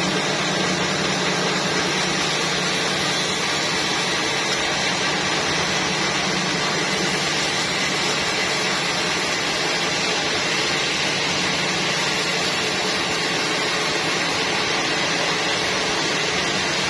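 Sawmill saw and machinery running steadily: a constant noisy whir over a low hum, which eases off after the first few seconds.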